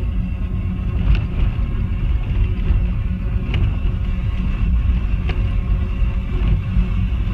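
Jeep driving slowly over a rough gravel dirt road, heard from inside the cabin: a steady low rumble of engine and tyres, broken by three sharp knocks as it jolts over rocks.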